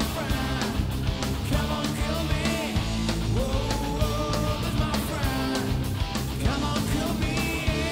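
Rock music with a steady drum beat and a melodic line over guitar and bass.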